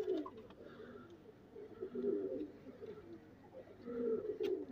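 Rampuri pigeons cooing in low, warbling phrases, three times: at the start, about two seconds in, and again around four seconds in.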